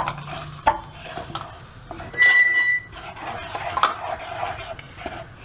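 Spoon stirring and scraping wheat and rice flour being roasted dry in a steel saucepan, with scrapes and light taps against the pan. A brief high squeal a little over two seconds in is the loudest sound.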